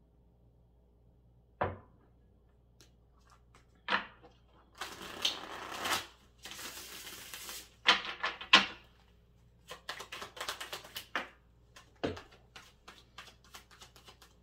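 A few sharp knocks on the wooden table, then a deck of tarot cards being shuffled by hand: rustling swishes followed by long runs of rapid clicking as the cards fall together.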